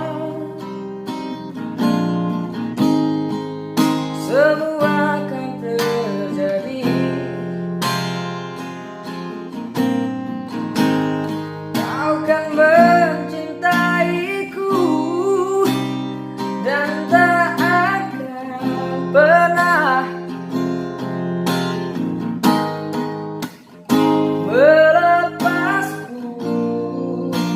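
Acoustic guitar strummed in a steady rhythm, with a bending melody line over the chords.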